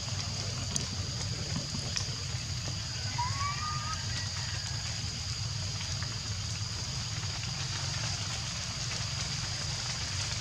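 Steady outdoor background noise with a constant high-pitched drone and a low rumble, a few faint clicks, and one short rising chirp about three seconds in.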